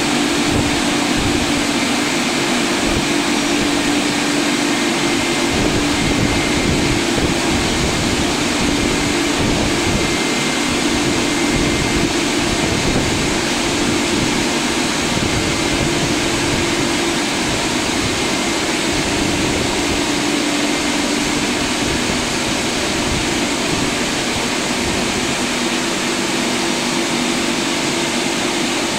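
Touchless car wash machine running: a loud, steady rushing noise with a low motor hum that fades in and out every few seconds.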